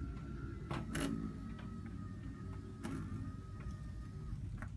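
1995 Honda Accord power antenna motor running as it pulls the new toothed mast cable down into its housing. It makes a steady whine that stops shortly before the end, with a few sharp clicks along the way.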